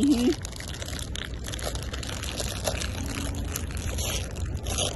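Crinkling and rustling of foil mystery-wand packs being torn open by hand, an irregular crackle over a steady low rumble.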